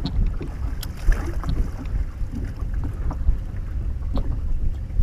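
Wind rumbling on the microphone aboard an open fishing boat, gusting unevenly, with scattered light clicks and ticks.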